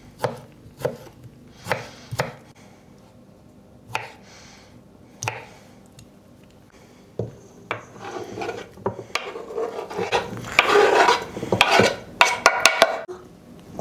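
Kitchen knife chopping salad vegetables on a chopping board, a few spaced knife strikes, then from about eight seconds in a louder run of scraping and clattering.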